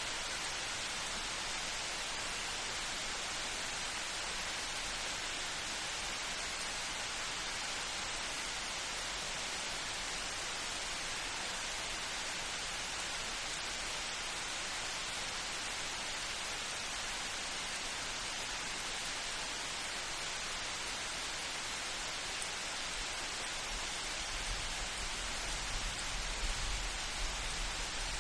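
Steady rain falling, an even hiss. From about three-quarters of the way through, a low rumble of distant thunder builds beneath it.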